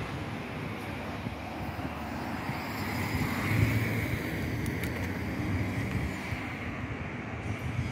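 Steady street-side engine rumble: a low drone that swells slightly about three and a half seconds in.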